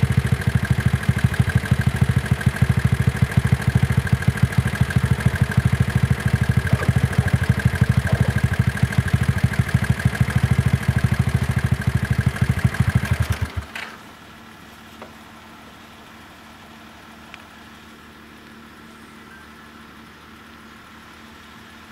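A car engine idling close by with a fast, even pulsing, which stops abruptly about fourteen seconds in, leaving only a faint steady hum.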